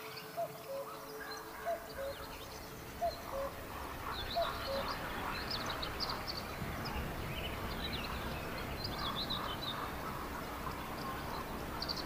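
Birds chirping over a steady outdoor hiss, with a short rising call repeated about once a second in the first few seconds.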